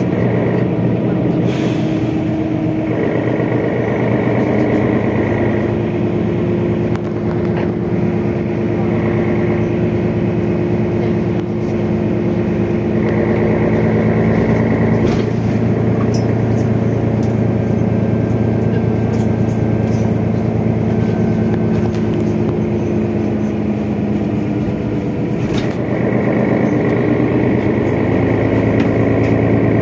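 Mercedes-Benz Citaro O530 city bus's OM457 straight-six diesel engine, with its ZF Ecomat 5HP automatic gearbox, running under way as heard inside the passenger cabin, its note shifting in pitch a few times. A few short knocks come through now and then.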